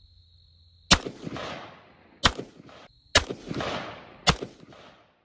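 16-inch AR-15 rifle firing five shots about a second apart at an armor plate, each crack followed by an echo that fades off. The first comes about a second in and the last right at the end.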